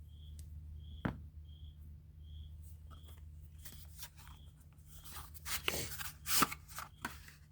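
Packaging being handled and opened: a single click about a second in, then a spell of rustling and crinkling from about five seconds in.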